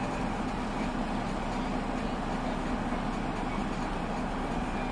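Steady hum of a car idling, heard from the driver's seat with the window rolled down.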